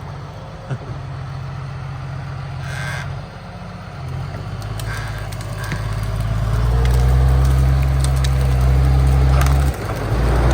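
Log skidder's diesel engine working under load while dragging logs, pulling harder from about six seconds in, with scattered cracks and knocks of wood and brush.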